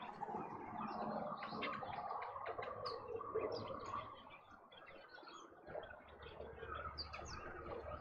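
Several wild birds chirping and calling at once: many short high chirps and whistled notes over a busier, lower chatter, thinning out briefly past the middle.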